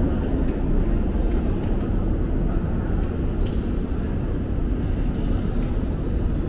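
Steady low rumbling background noise of a large, mostly empty indoor shopping hall, with a few faint clicks.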